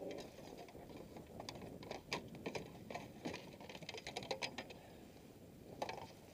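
Light, irregular clicks and taps of hands handling a freshly caught striped bass and fishing tackle on a kayak, a quick rattle of small knocks.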